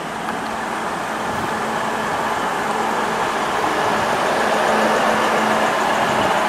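NSW TrainLink diesel railcar running through the station: a steady engine hum under rolling wheel and rail noise, growing louder over the first five seconds.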